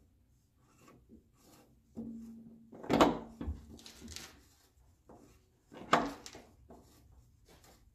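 Metal oil filter canister being twisted by hand onto its mount in a tight space against the oil pan: scraping and rubbing, with two loud knocks about three and six seconds in.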